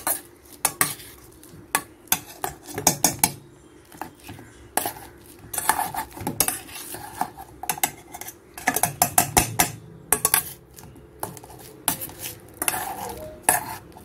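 A metal potato masher pressing and scraping through boiled potato in a stainless steel bowl, with irregular clinks and knocks of metal on metal and a few longer scrapes.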